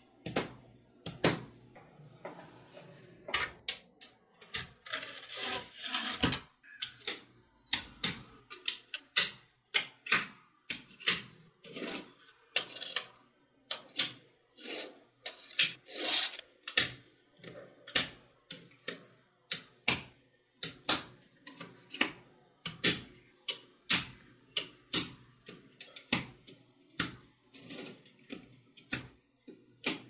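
Small neodymium magnetic balls clicking sharply as blocks of them snap onto a magnetic-ball structure, roughly two clicks a second, with short rattling stretches of balls shifting against each other about five seconds in and again near the middle.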